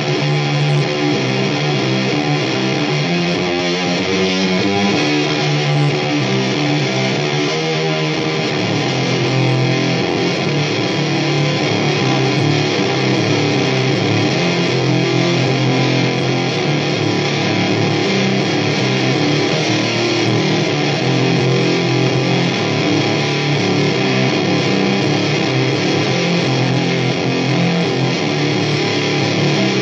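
Heavily distorted electric guitar playing a riff of low notes. The notes change quickly for the first several seconds, then give way to longer held, ringing notes.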